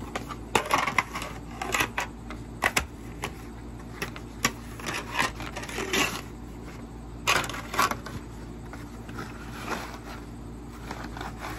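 Takeout food containers being handled on a table: an irregular run of clicks, crinkles and light knocks as the bowl's lid is set aside and the bowl is moved.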